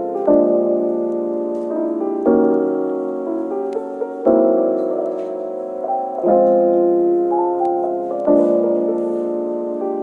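Background music: soft piano chords, a new chord struck about every two seconds.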